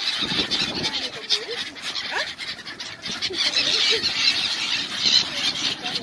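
A large flock of gulls calling over the water, many shrill calls overlapping without a break.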